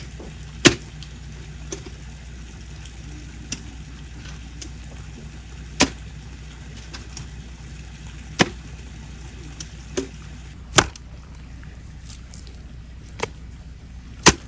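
Handfuls of wet clay and soil thrown into a galvanized metal bucket, each landing with a sharp knock against the metal. There are about five loud knocks a few seconds apart and fainter ones between, over a steady low hum.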